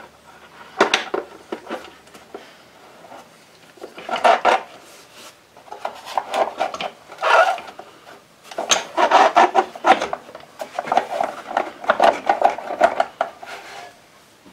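Adjustable wrench working a bolt on the tubular front handle of a Stihl TS400 cutoff saw: repeated bursts of metal clinking, clicking and scraping with short pauses between, the bursts longer and closer together in the second half.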